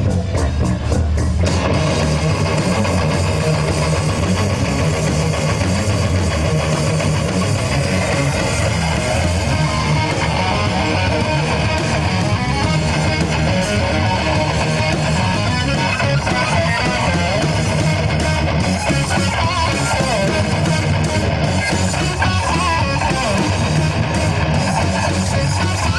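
A rock band playing live, with electric guitar to the fore and no singing.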